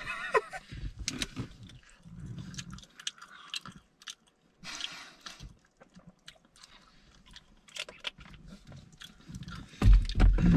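A person biting into and chewing a sauced hot chicken wing: irregular wet clicks and smacking mouth sounds. A loud voice comes in near the end.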